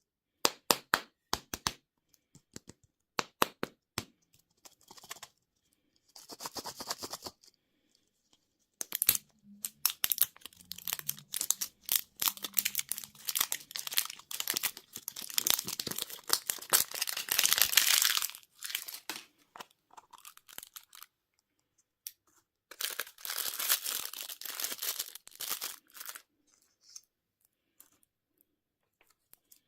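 Candy wrappers being torn open and crinkled by hand, in several bursts of dense crackling. The first few seconds hold a run of sharp separate clicks or taps.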